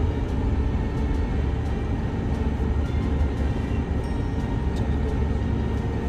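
Steady low rumble of a bus's engine and road noise, heard from inside the bus as it moves slowly through a car park.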